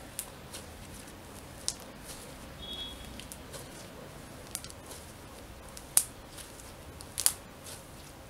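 Fluffy glitter slime kneaded and stretched by hand, giving scattered sharp clicks and pops as trapped air bursts, with two louder pops late on.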